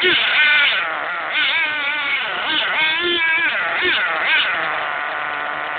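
Small combustion engine of a radio-controlled model car running as the car drives, its pitch rising and falling again and again with the throttle. The engine is running well.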